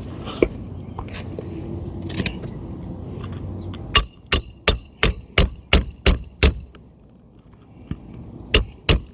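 Hammer striking a roof snake nail-driving tool to sink a roofing nail through a shingle into the roof decking. It gives eight quick, ringing metal-on-metal strikes at about three a second, starting about four seconds in, then two more near the end.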